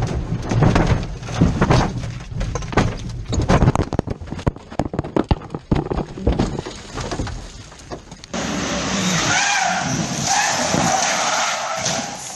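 Rally car skidding, with a dense, irregular clatter of knocks and impacts. About eight seconds in the sound cuts abruptly to a steadier hiss with wavering high tones.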